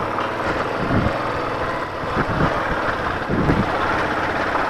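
Royal Enfield Bullet's single-cylinder engine running steadily as the motorcycle is ridden on a rough off-road track.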